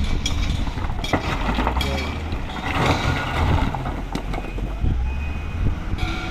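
Low, steady rumble of a vehicle engine running.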